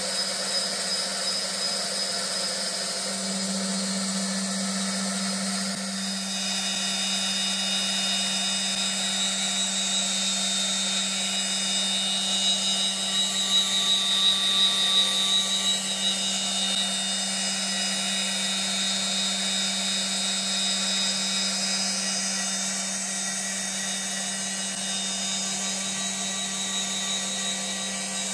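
EagleTec EA-TL1530ST4 CNC woodturning lathe turning a wooden pool cue, its saw-blade tool spinning at 18,000 rpm as it cuts the spinning blank. A steady high whine of the spindle with the sound of the blade cutting wood, swelling a little for a few seconds about halfway through.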